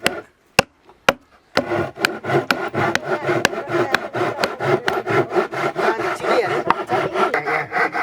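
Wood being worked by hand: rapid rasping, rubbing strokes with many sharp clicks, breaking off for about a second near the start with only a couple of clicks, then resuming.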